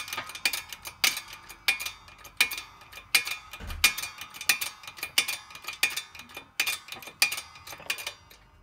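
Press working a homemade driver down onto the small end of a Cummins 4BT connecting rod, pressing a new wrist pin bushing into the bore: a run of irregular sharp metallic clicks, about two to three a second, each with a short ring. The clicks stop near the end.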